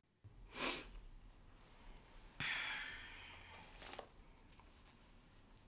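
A man's breath: a short sharp breath in about half a second in, then a long breath out that starts suddenly and trails off, with a faint click near the end.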